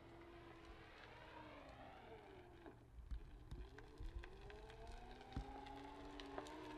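Onewheel Original's hub motor whining faintly. The whine is a few steady tones that dip in pitch about halfway through and climb again as the board slows and picks up speed. A few short knocks come through in the second half.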